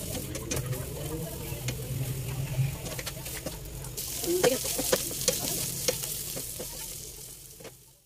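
Chopped red onions sizzling in hot oil in a nonstick frying pan. From about halfway through, a slotted spatula stirs them, clicking and scraping against the pan. The sound fades out near the end.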